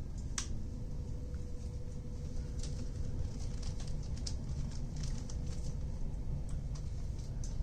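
Inside the passenger saloon of a moving VR Sm2 electric multiple unit: a steady low rumble from the running gear under a faint steady hum, with scattered light clicks and rattles throughout.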